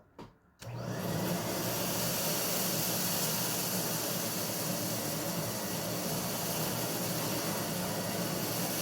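Riccar central vacuum switching on about half a second in, then running steadily with a loud rushing hiss of suction and a low hum as it picks up beads and hair.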